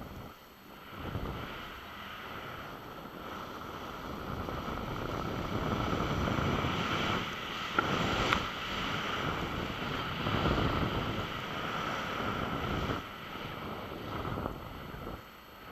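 Skis hissing and swishing through powder snow during a run of turns, with wind rushing over the microphone. The noise swells and fades with the turns, is loudest in the middle, and has a couple of sharp clicks about eight seconds in.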